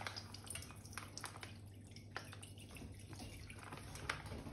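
Milk pouring from a carton into a stainless steel saucepan, a faint liquid splashing with a few light clicks, over a steady low hum.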